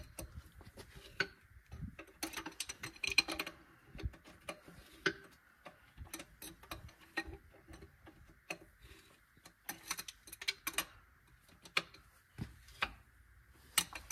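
Hand socket ratchet clicking in several short runs as bolts on a tractor's rear wheel hub are turned loose, with the odd sharp clack of the tool.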